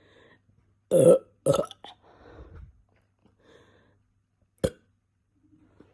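Two loud burps in quick succession about a second in, brought up by the carbonation of a drink of Coke. A single sharp click follows near the end.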